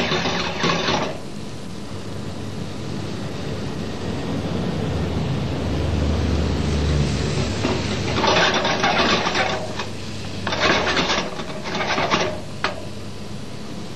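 Chopped shallots sizzling gently in butter in a small frying pan, with three bouts of a wooden spoon stirring and scraping across the pan, each lasting a second or two.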